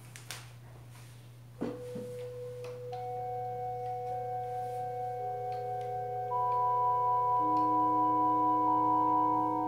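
Electronic keyboard playing slow, long-held notes with a soft, pure tone. The first note comes about a second and a half in, and new notes enter every second or so, overlapping into a chord that grows louder. A steady low hum runs underneath, and there are a few faint clicks before the first note.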